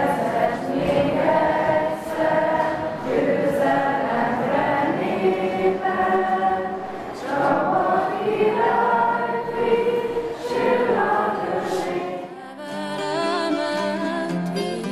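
Background music led by a choir singing in long held phrases.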